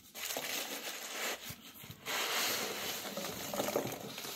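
Packaging rustling and crinkling as it is handled and unwrapped, in two stretches with a brief pause about halfway.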